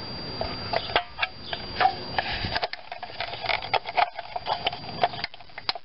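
Irregular clicks and small snaps as a screwdriver pries an old plastic hubcap off a steel wheel, its brittle plastic clips letting go one by one.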